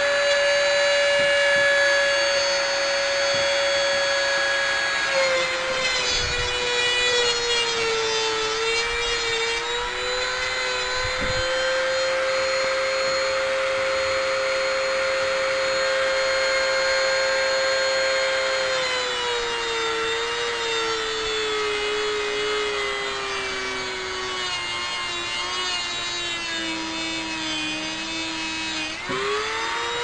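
A hardwired Dremel rotary tool with a cutting wheel, running flat out with no speed control, grinding through a hair dryer motor's shaft. Its high whine sags lower in pitch at times during the cut, and near the end it slows and winds down.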